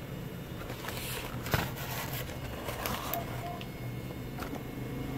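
Handling noise of a TV power supply board being moved and turned over: rustling and clicks, with one sharp knock about a second and a half in, over a steady low hum.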